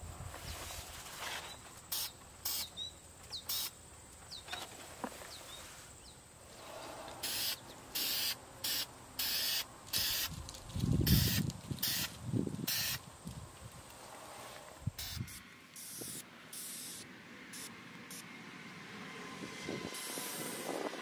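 Aerosol spray can of primer hissing in a series of short bursts, about a dozen, as the nozzle is pressed and released to lay a second coat of primer on a truck fender. A low rumble comes up briefly past the middle.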